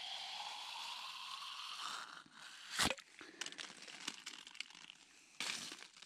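A metal French press being pulled apart by hand: a thin rising squeak over the first two seconds as the plunger slides up inside the carafe, then a sharp pop almost three seconds in as it comes free, followed by small clicks and rustles of handling.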